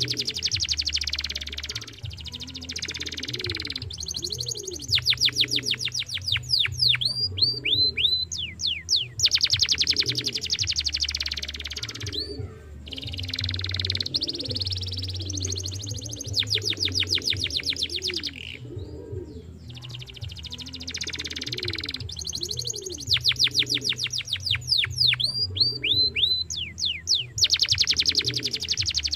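Young domestic canary singing: long runs of very rapid trills and quick repeated falling whistles, in bursts of a few seconds with short gaps between them.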